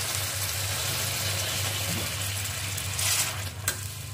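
Hot water poured into a metal kadai of frying masala, potatoes and flat beans, hissing and splashing steadily as the curry's gravy is added. The pour stops about three and a half seconds in, followed by a light knock of the wooden spatula.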